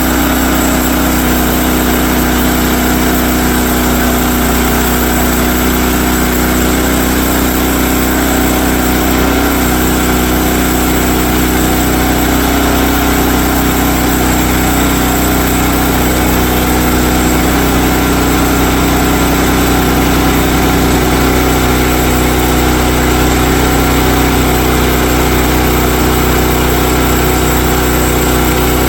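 Sawmill's gasoline engine running steadily at a constant speed, with a slight change in its low tone about twenty seconds in.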